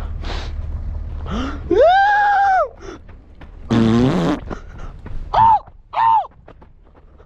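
A donkey-like bray: a long, high 'hee' note that rises and holds, then a lower, rough, falling 'haw', then two short high 'hee' notes. Steady wind noise runs under the first second and a half.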